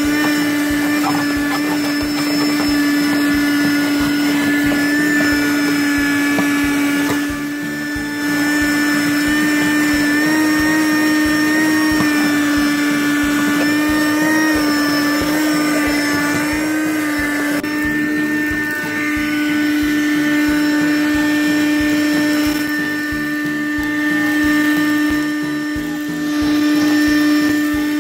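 Small Lux wet-and-dry car vacuum running with a steady high-pitched motor whine, its pitch wavering slightly now and then as it is worked over the car floor.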